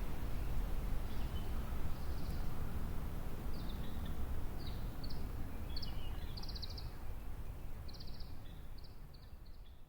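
Wind rumbling on the microphone, with a Japanese bush warbler calling in a run of short high notes from about three and a half seconds in. The sound fades out at the end.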